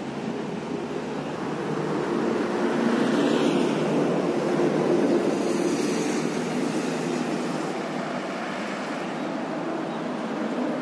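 A vehicle passing on the road: engine and tyre noise swells to a peak a few seconds in and then fades, over a steady rushing noise.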